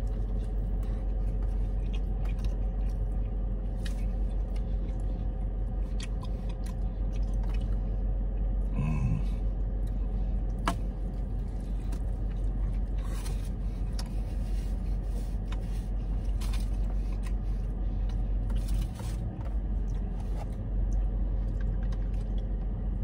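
A man chewing mouthfuls of burrito, with small wet clicks and crackles, over the steady low hum of the car he sits in. There is a short voiced murmur about nine seconds in.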